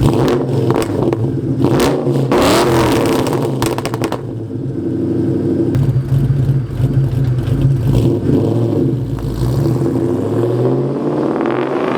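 A 4.6-litre V8 in an SN95 Mustang is running and blipped on the throttle. The pitch sweeps up and back down about two seconds in, then climbs again near the end.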